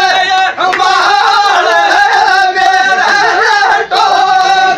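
Men singing a Rajasthani Gujjar dhamal folk song in loud, high voices, with strokes of a large daph frame drum beneath the singing.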